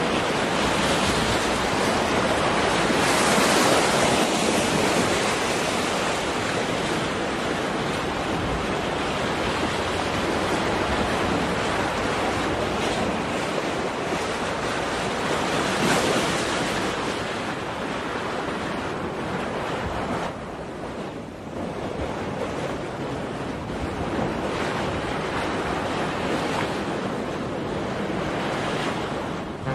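A steady rushing noise that swells about three seconds in and again about sixteen seconds in, with a brief dip around twenty-one seconds.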